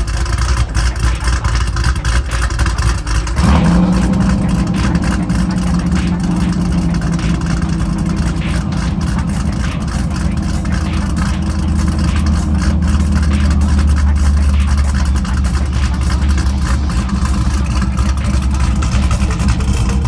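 Chevrolet SS engine running. About three and a half seconds in its note jumps up suddenly and then holds steady.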